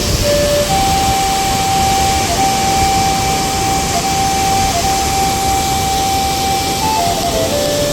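Steady, loud rushing roar of water pouring over the Hoover Dam on Big Walnut Creek. A thin steady whine runs through it, shifting in pitch a few times, most of all near the end.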